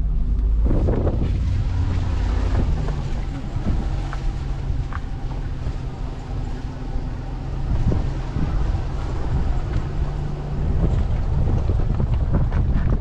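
A vehicle's engine running steadily as it drives, with wind buffeting the microphone and scattered knocks and rattles.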